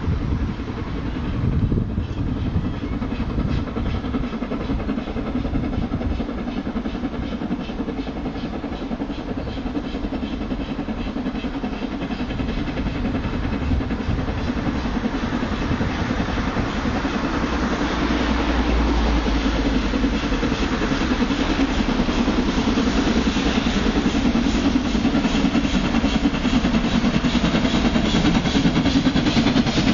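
Approaching train of the LMS Pacific steam locomotive 6201 with a Class 67 diesel coupled behind, running steadily and growing louder as it nears, loudest near the end.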